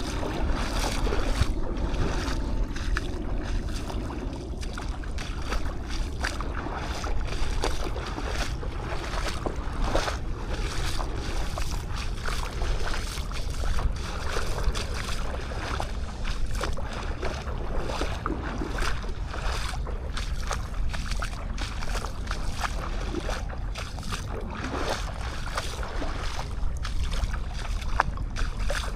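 Sea waves washing on the beach, with wind rumbling on the action camera's microphone and frequent short crackles.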